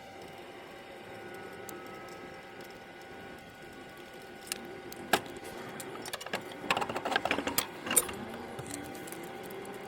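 Metal clinks and clanks of tools and parts during removal of a truck's wheel hub, over a steady hum. A quick run of clatter about two-thirds of the way in is the loudest part.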